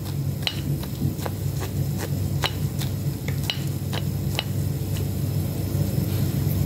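Lemon juice and baking soda foam fizzing, its bubbles popping in small irregular ticks, about one or two a second, over a steady low hum.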